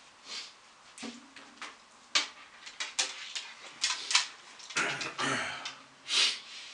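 Scattered clicks, knocks and rustles of a guitarist sitting down and settling an acoustic guitar on his lap, with two short hissing sounds near the end.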